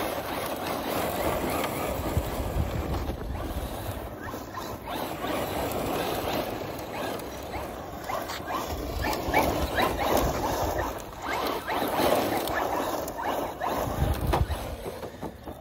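ARRMA Mojave 4S radio-controlled truck drifting on dry grass and dirt: its brushless electric drivetrain runs in repeated surges as the throttle comes on and off, with the tyres scrabbling through the dirt.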